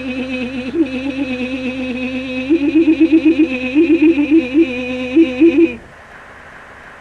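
A person's voice holding one long, low, wavering note, breaking into quick upward pitch flips in its second half, then stopping abruptly about six seconds in.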